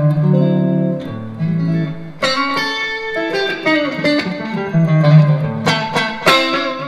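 Electric guitar, a Squier Stratocaster-style, playing a low blues shuffle rhythm pattern for about two seconds. It then moves to higher single-note blues licks with sharp picked attacks.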